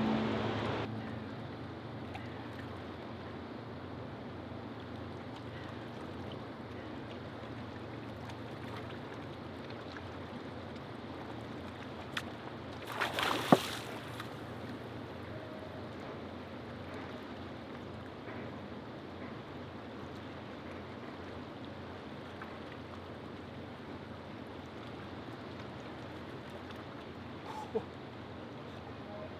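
Steady wash of river water against a rocky bank, with a brief sharp noise about halfway through and a faint click near the end.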